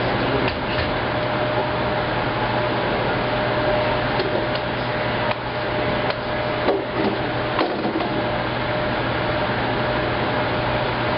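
Maytag SoftMount commercial front-load washer running through its wash cycle: a steady mechanical whir over a constant hum and a faint steady tone, with a few light clicks and knocks.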